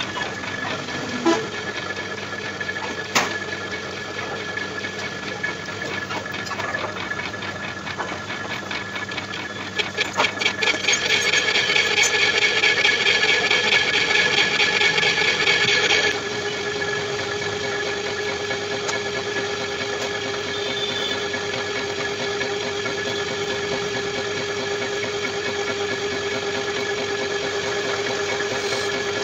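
Metal lathe running while a boring bar cuts inside the bore of a cast rotavator hub. From about ten seconds in the cut grows louder with a fast, even rattle, and about six seconds later it drops back to a steady running hum with a whine.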